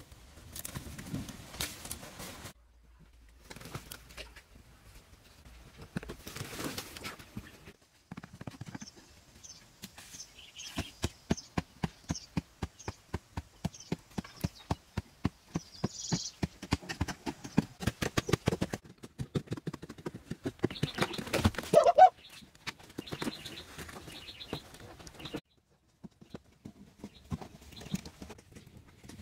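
Steady run of dull knocks, several a second, from hand work on packed earth and mud, with birds chirping faintly above it.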